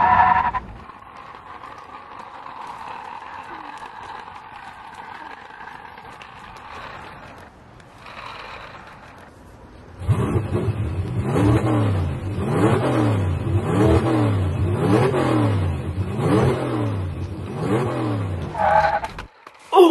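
Engine revving sounds for a toy car: a steady, quieter drone at first, then from about halfway in a loud series of revs rising and falling in pitch, roughly one a second.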